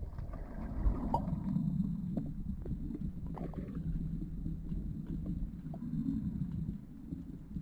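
Underwater recording of low, steady rumbling water noise, with scattered faint clicks and knocks.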